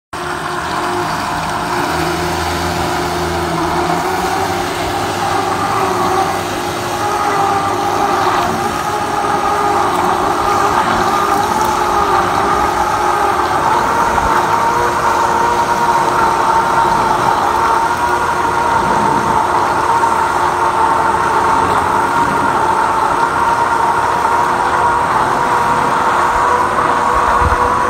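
A steady motor drone with a whine that rises slowly in pitch over the first fifteen seconds or so, then holds.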